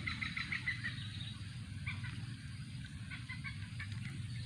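A quick run of short, repeated bird chirps in the first second, then scattered chirps, over a steady low hum.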